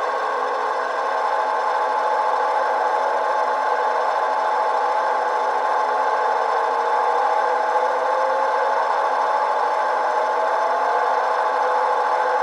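Digital sound decoder in an HO-scale model locomotive playing a GP9 diesel engine run up to full throttle (notch 8), a steady engine drone through tiny speakers, thin and with almost no deep bass.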